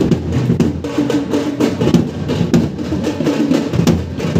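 Large drums on wheeled stands beaten with sticks in a fast, loud, dense rhythm of procession drumming.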